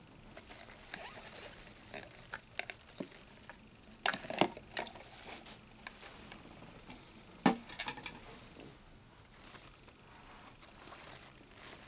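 Light, scattered clicks and taps of long metal tweezers and a clear plastic cup knocking against a plastic tub, with a few louder knocks about four seconds in and once more about seven and a half seconds in.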